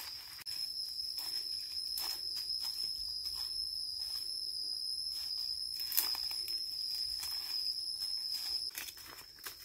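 A steady, high-pitched insect drone that stops near the end, over scattered crackling and rustling of dry brush and one sharp snap about six seconds in.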